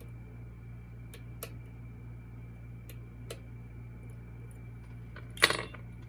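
A few faint clicks of picks working in a Goal V18 lock, then a sharp metallic clatter with a brief ring about five and a half seconds in.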